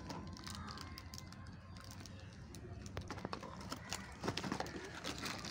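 Light clicks and taps of printed picture puzzle sticks being handled and set down on a cloth-covered table, more of them in the second half, over a low steady background hum.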